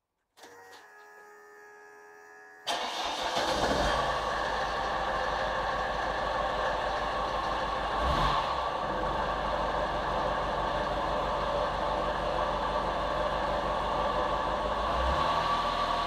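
Old Mercedes-Benz Vito diesel van engine being started: a quieter whine for about two seconds, then the engine catches and settles into a steady diesel idle, with one brief blip of the throttle about eight seconds in.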